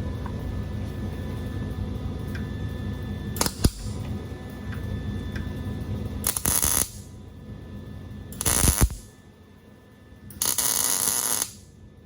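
Welder striking short tack welds: four brief bursts of crackling arc hiss, each under a second, over a steady low shop hum. The arc keeps dropping out, which the welder blames on losing his ground connection.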